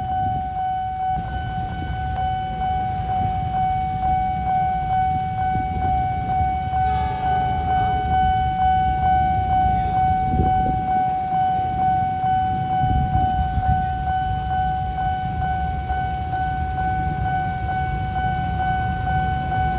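Railway level-crossing warning siren sounding one unbroken steady electronic tone, with the barriers down for an approaching train. Beneath it is a low rumble from idling motorbikes and the approaching diesel locomotive of a coal train.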